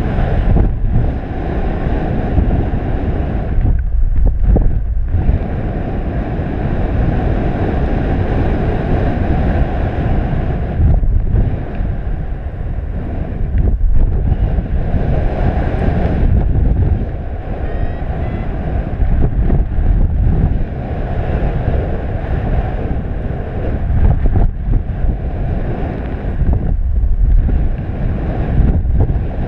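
Airflow rushing over a paraglider pilot's camera microphone in flight: a loud, uneven wind rumble and hiss that swells and drops every few seconds.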